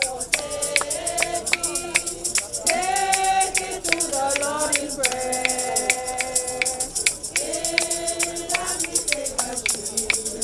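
A group of voices singing a gospel hymn in long held notes, with a tambourine shaken on a steady beat about three times a second.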